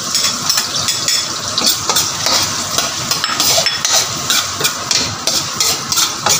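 Chopped onion and minced garlic sizzling in hot oil in a wok as they are sautéed, with a metal spoon scraping and clicking against the pan while stirring.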